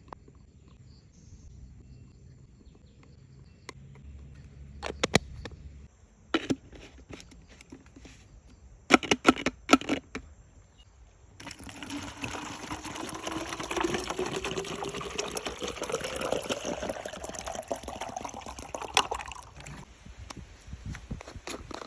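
A few sharp knocks and clicks, then water pouring into a container for about eight seconds, with a tone in it rising steadily in pitch until it stops abruptly.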